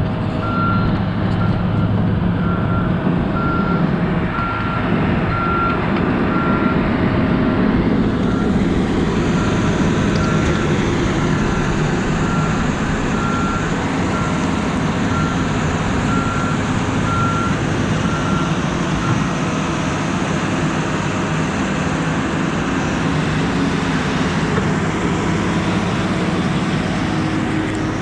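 Excavator's diesel engine running steadily under load, with its travel/backup alarm beeping at an even rhythm that stops about two-thirds of the way through.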